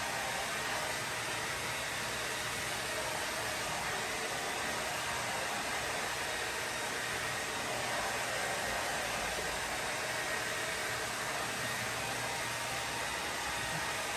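Handheld hair dryer blowing steadily, a constant even whoosh of air and motor with no change in level.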